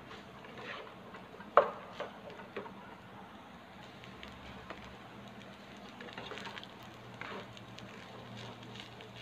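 Wooden spatula and plastic rice paddle stirring and tossing fried rice in a nonstick pan: soft scrapes and taps against the pan, with one sharp clack about one and a half seconds in.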